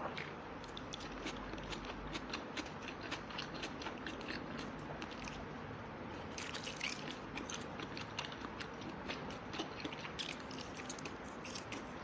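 Close-up eating sounds: chewing and biting food, with many small irregular clicks and crunches.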